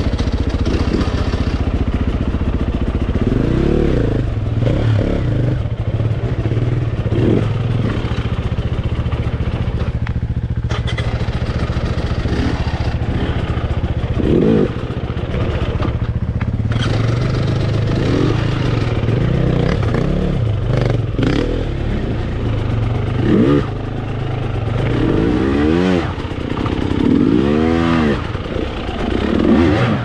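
Dirt bike engine being ridden hard, the revs rising and falling again and again, with quick blips of the throttle up and down near the end.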